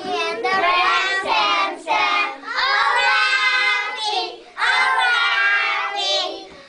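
A class of young children singing a song together, in three phrases with short breaks between them.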